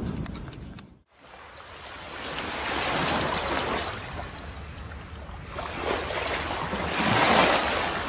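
Small waves washing up a sandy beach at the water's edge, swelling twice, about three and seven seconds in.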